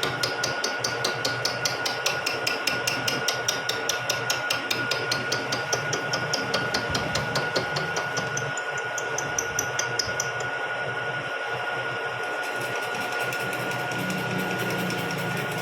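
Vertical milling machine cutting spur gear teeth: a rapid, regular clatter of about five ticks a second over the machine's steady running and a steady whine. About ten seconds in the ticking dies away and the machine runs on steadily.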